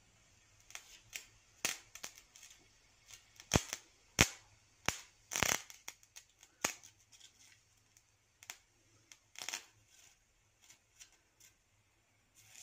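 Irregular crackling and sharp pops of a battery-powered DC welding arc as a rod held in a clamp is worked on a battery terminal. The loudest pops come around four to five and a half seconds in.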